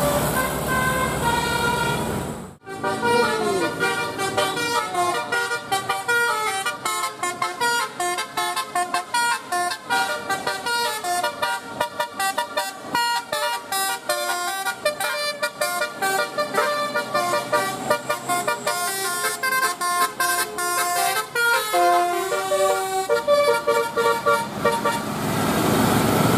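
Bus telolet horn playing a fast tune of rapidly changing notes, after an abrupt cut about two and a half seconds in; before the cut, vehicle noise with horn tones.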